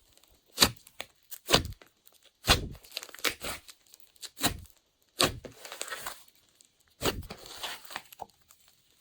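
Glossy slime being squeezed and folded by hand, giving sharp sticky pops and crackles roughly once a second at uneven intervals.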